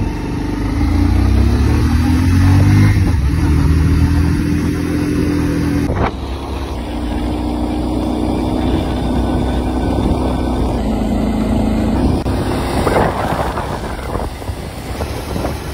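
Motorcycle engine running under way, its pitch rising as it accelerates over the first few seconds, with wind rushing over the microphone. The sound changes abruptly about six and twelve seconds in.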